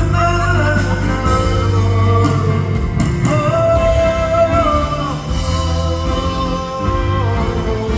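Live band music from a slow soft-rock song, with held chords over a steady bass line.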